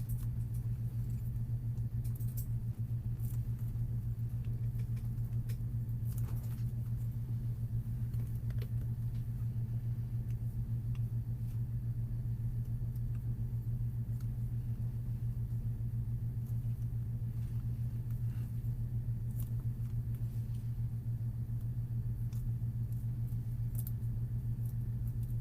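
Steady low hum that does not change, with faint scattered clicks and taps over it.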